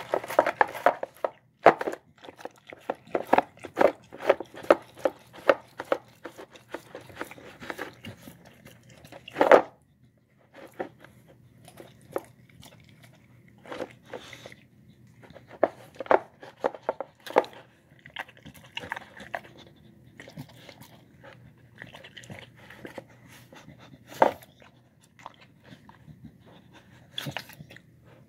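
A dog eating boiled rice and egg from a plastic bowl: quick wet smacks and clicks of chewing and licking, dense for about the first ten seconds, then coming more sparsely.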